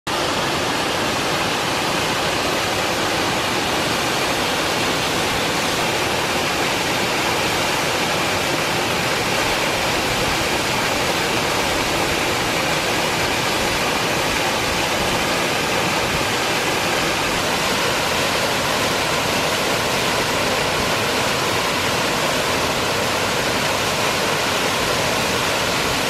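Waterfall pouring down a rocky ravine and splashing onto rocks: a loud, steady, even rush of water.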